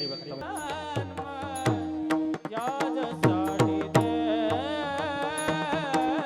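Devotional kirtan music between sung lines: a steady held note under a melodic line that bends up and down in pitch, with hand-drum strokes whose bass falls in pitch and sharp cymbal-like clinks keeping time.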